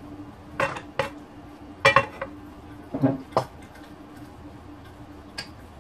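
A metal spoon and hands knocking and scraping in a stainless steel mixing bowl: a handful of separate clinks over the first three and a half seconds, the loudest about two seconds in, and one faint one near the end.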